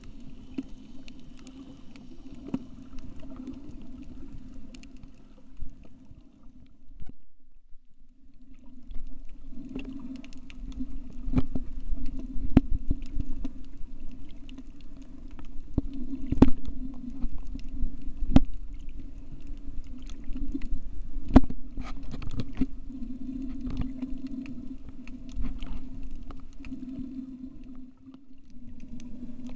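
Muffled underwater sound from a submerged camera: a steady low hum with scattered sharp clicks and knocks. The hum drops out for about a second around seven seconds in, and the clicks are most frequent in the middle.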